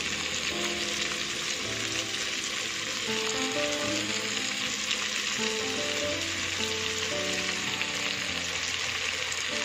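Sliced onion, tomato and green chilli sizzling steadily as they fry in a non-stick wok, with dark soy sauce poured over them. Light background music with held melodic notes plays underneath.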